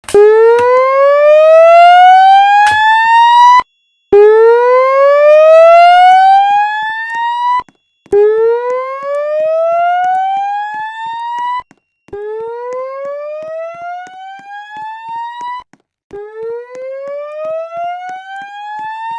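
Voice-evacuation fire alarm speaker sounding its slow-whoop evacuation tone: a rising sweep of about three and a half seconds, repeated five times with short gaps. The last three sweeps are somewhat quieter than the first two.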